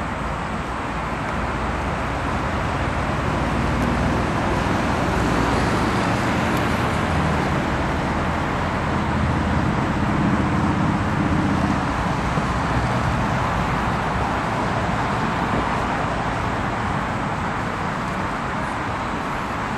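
Twin rear-mounted turbofan engines of a JASDF U-125A rescue jet running as it rolls down the runway: a steady jet rush with a low rumble under it, swelling louder through the middle and easing off again toward the end.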